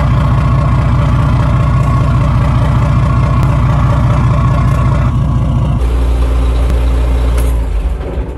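Yanmar marine diesel inboard of a fishing boat idling, its wet exhaust pulsing water out of the outlet at the waterline with a steady beat. About two-thirds through the sound turns to a deeper hum, and near the end the engine winds down and stops as the key is switched off.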